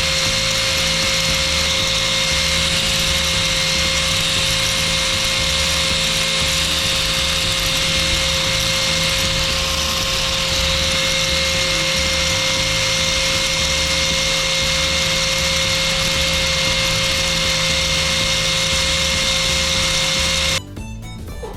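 Electric grinding or sanding power tool running steadily on #240-grit abrasive, with a constant motor whine over a grinding hiss. It cuts off suddenly near the end.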